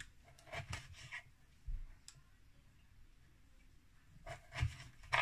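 Knife cutting dried apricots on a wooden cutting board: soft, scattered taps of the blade on the board, several in the first two seconds and a few more near the end.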